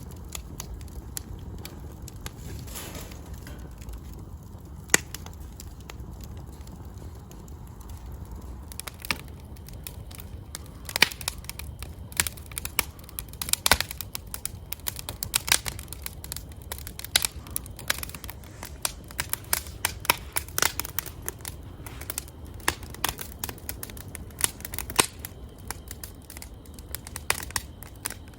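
Wood fire crackling and popping in a fire stove, with irregular sharp pops over a low steady rumble. The pops come thicker and louder from about nine seconds in.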